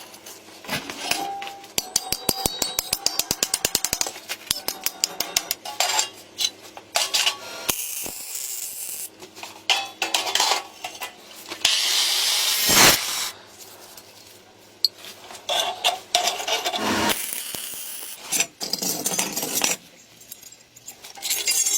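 Hand tools working metal parts: a run of rapid, even clicks at about seven a second, then scattered clinks, taps and scrapes. Short bursts of hissing come near the middle and again at the end.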